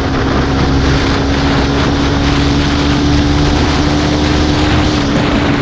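Motorcycle engine running at a steady cruising pace, its note held nearly constant, over a steady rush of road and wind noise.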